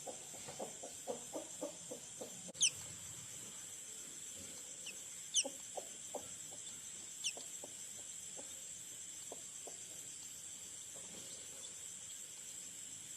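Broody hen clucking softly in a series of short low clucks, quick at first and then more spaced out, with three brief high falling peeps from hatching chicks.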